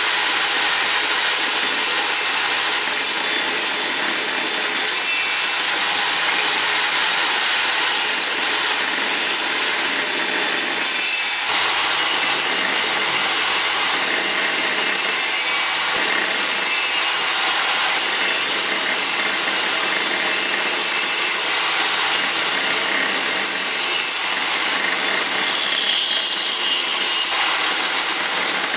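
Benchtop table saw running steadily, its blade cutting passes through a small wooden block to form a slot.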